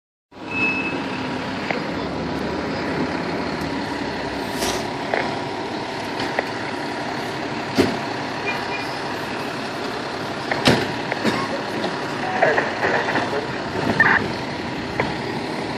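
A fire engine pumper's diesel engine running steadily as the truck maneuvers at low speed. Three short, sharp sounds cut through it about 5, 8 and 11 seconds in.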